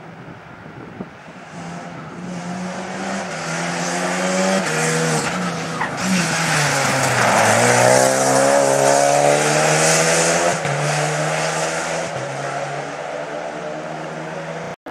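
Rally car at speed on a special stage: the engine note climbs through a couple of upshifts as it approaches, is loudest as it sweeps past about halfway through, then pulls away and fades, with tyre hiss on the tarmac.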